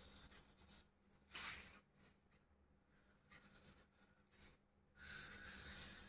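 Faint scratching of a marker pen drawing a line on card, in a few short strokes, the longest near the end.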